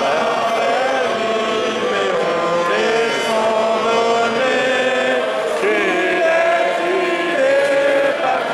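Many voices singing an anthem together, a slow melody with held notes.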